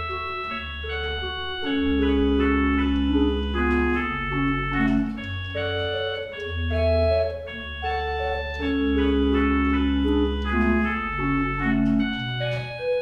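Organ music: slow held chords over long, deep pedal bass notes, the chords changing every second or so.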